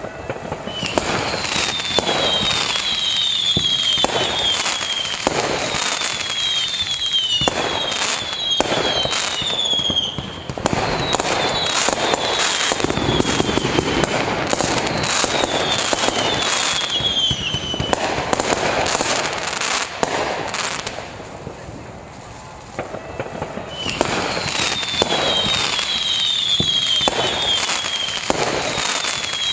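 Harbour fireworks display: a dense run of bangs and crackling, with clusters of short falling whistles recurring throughout. The barrage eases briefly a little past twenty seconds in, then builds again.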